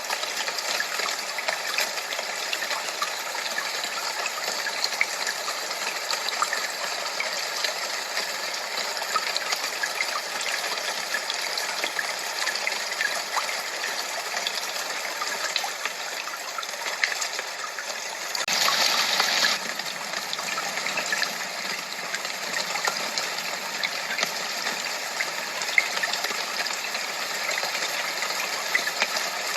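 Steady rush of running water with a fine crackle of small ticks through it, swelling louder for about a second roughly two-thirds of the way through.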